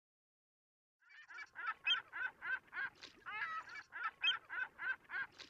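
A rapid run of short pitched calls, roughly three a second, starting about a second in.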